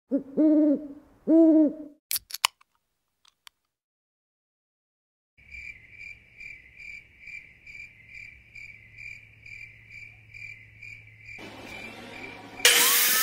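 An owl hoots twice, then a few faint clicks. A cricket then chirps steadily, about three chirps a second, over a faint low hum. A rising hiss builds near the end and gives way to a sudden loud burst of noise in the last half second.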